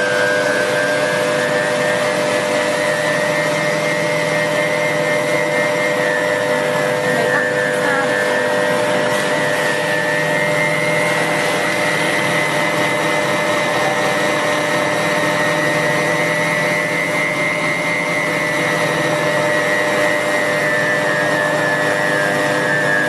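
QS-9J stainless-steel garlic chopping machine's electric motor running steadily under its speed control, with a high whine that drifts slowly up and down in pitch.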